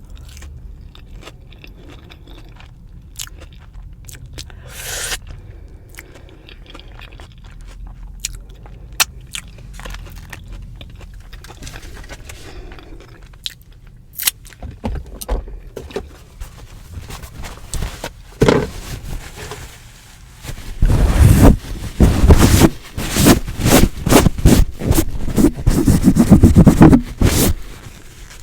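Close-miked eating of a deep-fried Korean cheese dog. Soft clicks and quiet chewing come first, then about two-thirds of the way through, loud, rapid, irregular crunching of the fried coating.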